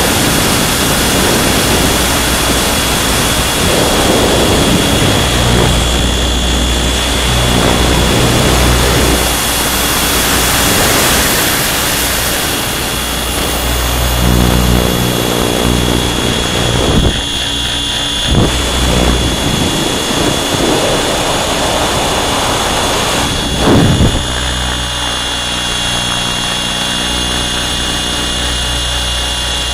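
Align T-Rex 700 radio-controlled helicopter in flight, heard from a camera mounted on it: a steady high whine over a low rotor hum, with wind rushing across the microphone in swells. A few brief knocks in the second half, the loudest near the end.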